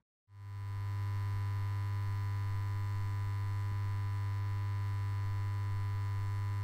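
A steady low electronic drone, a deep hum with a stack of fainter steady higher tones, fading in shortly after the start and then holding unchanged.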